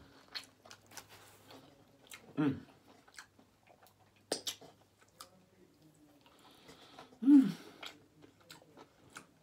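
A person chewing a mouthful of chicken burrito close to the microphone, with wet mouth clicks and smacks and one sharp smack about four seconds in. Two short low grunts come from his mouth, about two and a half and seven seconds in, the second the loudest sound.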